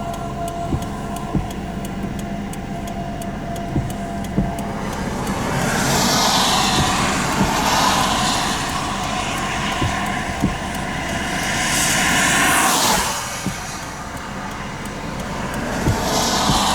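Steady rumble of a vehicle on the road, with a rushing noise that swells and fades three times and scattered light ticks.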